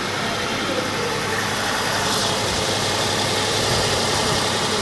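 Tata Tiago petrol's three-cylinder engine running at idle and misfiring, a steady engine sound with no revving. The misfire comes from a faulty cylinder-3 fuel injector leaking petrol into the bore.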